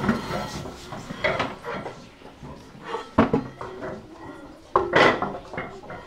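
School chairs with wooden seats and metal legs being lifted off the desks and set down on the floor: repeated knocks and clatter, the loudest about three and five seconds in.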